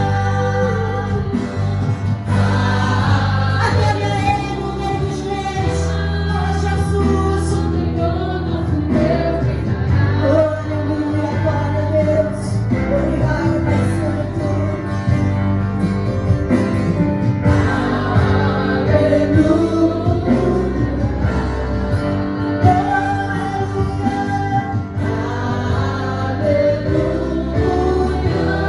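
Live gospel worship band with several singers singing together over keyboard, acoustic guitar and steady low bass notes.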